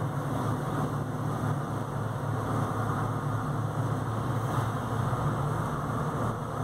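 Steady engine hum and road noise of a car driving along at an even pace.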